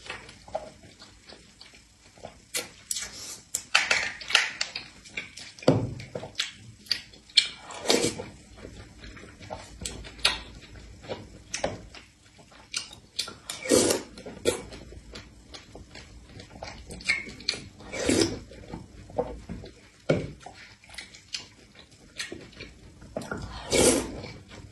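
Close-miked eating sounds: a metal spoon clinking and scraping in a plastic dessert tub, with wet chewing and slurping of a fruit and taro-ball dessert, in irregular bursts.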